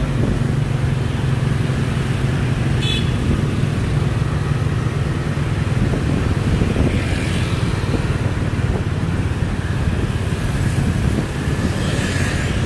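Steady motorbike and car traffic, with a constant low engine hum and a brief high-pitched horn beep about three seconds in.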